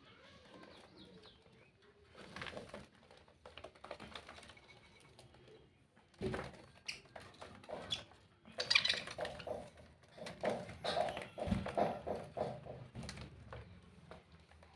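Parrot calling and chattering in irregular bursts, sparse at first and busier and louder in the second half.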